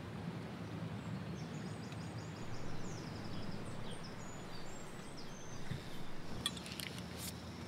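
Steady outdoor background noise from the river's rushing water, with a run of faint, high bird chirps in the first half.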